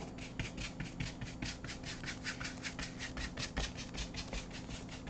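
A paintbrush scrubbing acrylic paint across a canvas in quick, regular back-and-forth strokes, several a second, blending the paint out with an almost dry brush.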